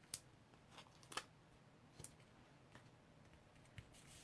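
Faint, scattered small clicks and light paper handling, about half a dozen over the few seconds, as small foam adhesive squares (Stampin' Dimensionals) are peeled from their backing sheet and pressed onto a card piece.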